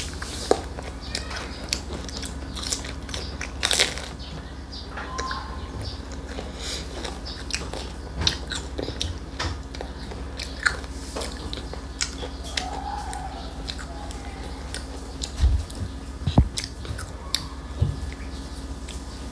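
A toddler biting into and chewing a soft white-bread sandwich: irregular small mouth clicks and smacks, a few louder ones scattered through.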